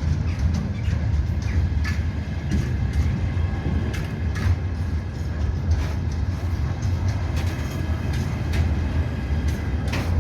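Slow container freight train rolling past: a steady low rumble of wheels on rail with irregular clicks and knocks, and faint high wheel tones.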